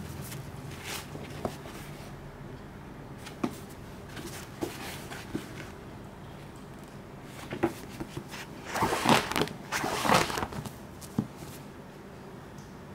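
A paperback manga omnibus and its paper dust jacket handled by gloved hands: scattered light taps and clicks, then a burst of paper rustling and crackling about nine to ten and a half seconds in, the loudest part.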